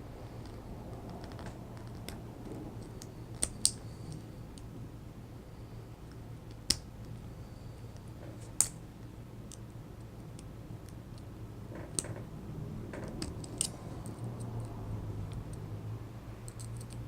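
Scattered sharp metal clicks and taps of small tools such as tweezers against a lock being taken apart, as the retaining clip under a stiff spring is worked loose. A pair of clicks comes a few seconds in, and single ones follow every few seconds.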